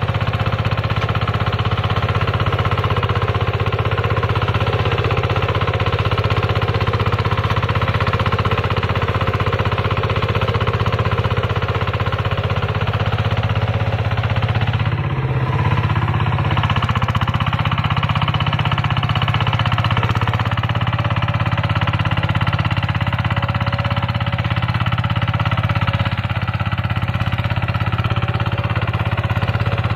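Single-cylinder diesel engine of a two-wheel hand tractor running steadily under load while its rear rotary tiller works the soil, with a rapid, even chugging and a slight dip about halfway through.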